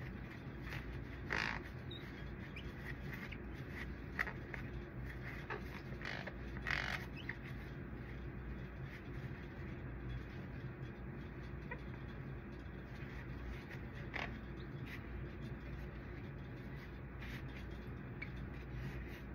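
Cloth rubbing on a copier's photoconductor drum as it is polished, in a few short rubbing strokes: the loudest about a second in and near seven seconds, smaller ones near four and fourteen seconds. A steady low hum runs underneath.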